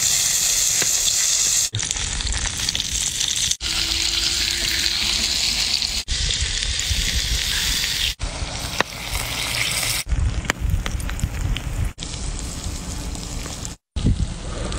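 Oil and a green pepper sizzling on a hot stone slab heated by embers underneath. The sizzle is heard in short edited stretches that cut off abruptly and restart several times.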